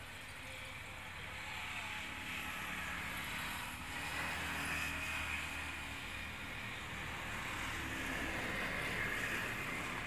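Highway traffic passing: trucks and a car go by, their engine and tyre noise swelling to a peak about halfway through and again near the end.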